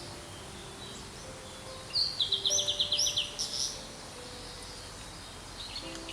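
Blue-and-white flycatcher singing one phrase about two seconds in: a clear opening note, then a fast run of short downward-sweeping notes and a few higher notes. Soft background music runs underneath.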